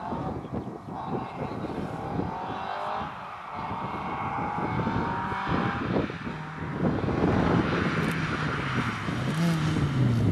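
Rally car engine heard from inside the car, running hard at speed, its pitch rising and dipping a few times near the end. Constant knocking and rattling and road noise run underneath it.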